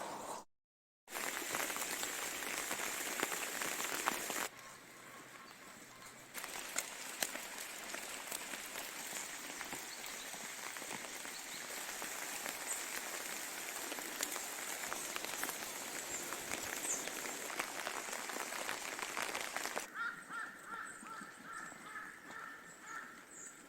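Outdoor weather noise: rain and wind as a steady hiss, dotted with many small ticks of drops striking. Near the end a bird calls in a quick repeating series of short high notes.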